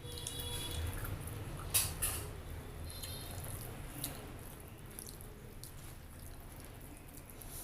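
Close-miked wet mouth sounds of eating: chewing and lip smacks, with a few sharper clicks about two seconds in and again near four seconds.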